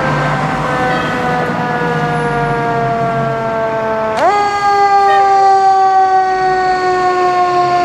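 Fire engine siren sounding a slow falling wail, swept sharply back up about four seconds in and then falling slowly again.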